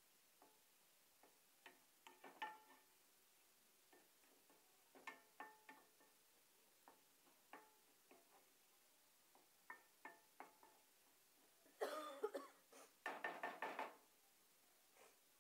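Spatula knocking and scraping against a nonstick pan while stirring a thick masala: scattered short taps, some with a brief metallic ring. About twelve seconds in comes a louder run of clattering that lasts a couple of seconds.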